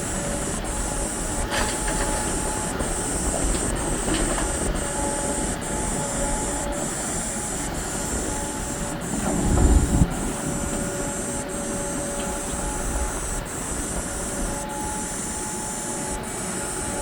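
Hidromek 390LC excavator's diesel engine and hydraulics working steadily, with a faint whine over the engine noise and a high hiss that breaks off about once a second. A heavy low thump about ten seconds in is the loudest moment.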